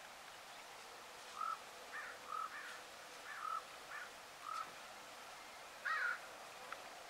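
A bird calling: a series of about eight short calls over some five seconds, the last one the loudest, followed by a single faint click.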